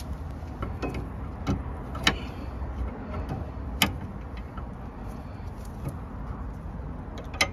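A few sharp metallic clicks of a spanner working on a seized brake pipe union nut at the rear brake caliper, over a steady low rumble. The nut will not turn; the whole corroded brake pipe twists with it.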